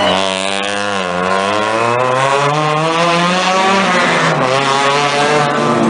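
A rally car's engine revving hard under acceleration. Its pitch dips, climbs steadily for about two seconds, then steps down sharply with a gear change about four seconds in.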